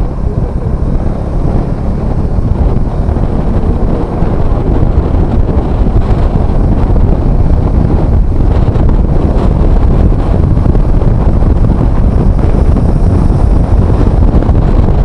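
Heavy wind noise rumbling on the microphone of a motorcycle riding at highway speed, with road and engine noise underneath, steady throughout.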